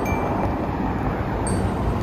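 City street traffic: cars driving past on a multi-lane road, a steady rush of tyre and engine noise.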